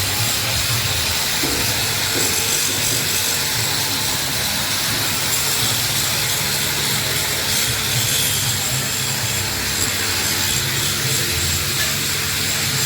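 Coconut husk grinding machine running steadily: a constant loud hiss over a low mechanical hum.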